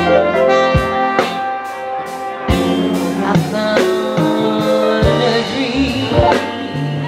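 Live band playing, a woman singing lead over drums, bass, guitar and horns.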